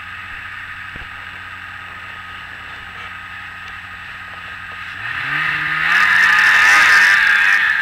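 Snowmobile engine running steadily, then revving up about five seconds in, rising in pitch and growing much louder, with a hiss of track and snow.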